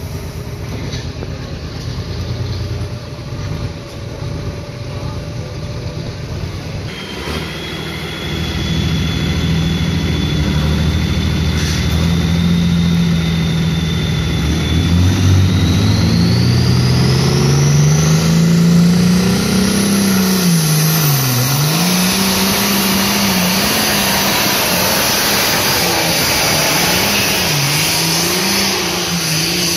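Red pulling tractor's diesel engine working hard at full throttle under load on a pull, with a high turbo whistle that climbs steadily in pitch. The engine note rises, then sags and recovers twice as the load bites.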